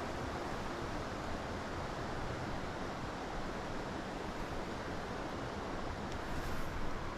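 Steady rushing wind with gusts buffeting the microphone.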